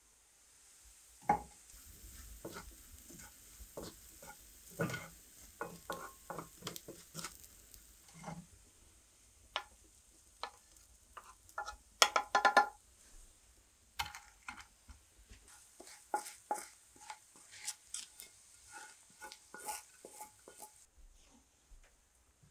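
A spoon stirring and scraping in a cast-iron frying pan on the cast-iron hotplate of a wood-fired stove, with light sizzling underneath. Scattered clinks and knocks of metal, with a quick run of loud clanks about halfway through.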